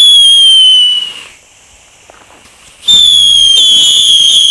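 Small F1 whistling fireworks (Heuler) going off. First comes a loud, high whistle that sinks slowly in pitch and lasts about a second. After a short pause a longer whistle starts, and a second whistle overlaps it shortly afterwards.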